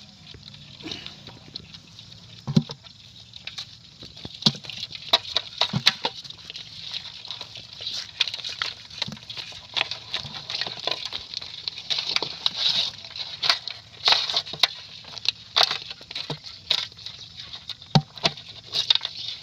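A hand rummaging through a metal basin heaped with snails, the shells clicking and clattering against each other and the basin in many irregular sharp clicks, getting busier after the first few seconds.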